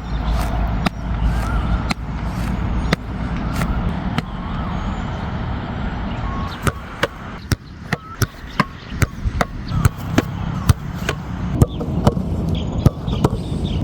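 Irregular sharp slaps or knocks, sparse at first and coming several a second in the second half, over a steady low rumble.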